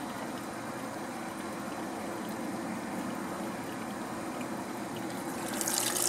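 Water running into the tub of a Laundry Alternatives compact top-loading washing machine as it fills at the start of its wash cycle: a steady rush of water, growing louder near the end.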